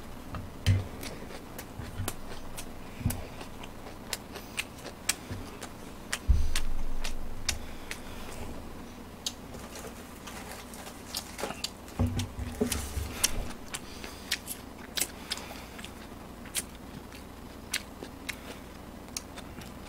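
A person eating close to the microphone: chewing and mouth sounds with many small sharp clicks throughout. A low thump about six seconds in fades over a second or two, and a few softer thumps come about twelve to thirteen seconds in.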